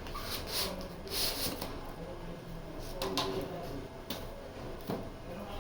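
Equipment and packaging being handled: a few sharp clicks and knocks, with short rustles in the first second and a half.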